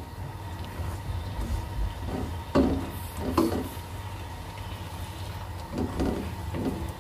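Silicone spatula stirring raw peanuts through melted sugar syrup in a non-stick pan: a few short scraping strokes with the nuts shuffling against the pan, over a steady low hum.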